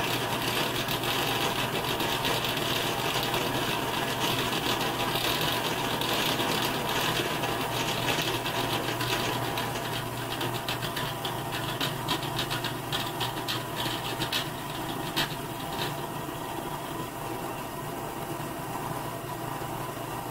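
Drill press running with a center drill cutting into a 1144 stress-proof steel bar: a steady motor hum under a scraping cut. About halfway through the cut turns lighter and more broken, with a run of irregular ticks.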